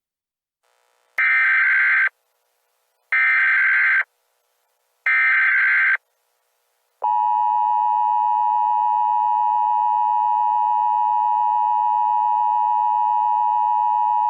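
Emergency Alert System signalling: three short bursts of data tones (the SAME header) about a second each, then the steady two-tone EAS attention signal starting about seven seconds in. They announce an Emergency Action Termination.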